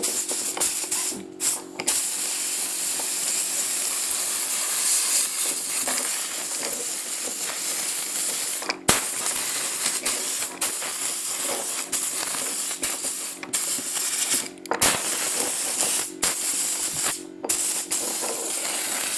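Compressed-air blow gun hissing in long blasts, broken by a few short pauses, as it blows poorly bonded alkyd paint off the linseed oil paint of an old wooden door.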